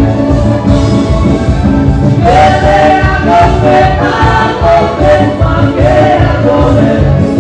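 Live band playing a Slovak dance song, with sung vocals over a keyboard-led accompaniment and a steady beat, loud and close to the stage.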